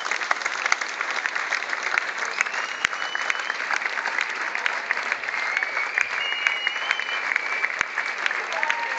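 Concert crowd applauding steadily, a dense patter of clapping, with a few high held whistles from the audience over it.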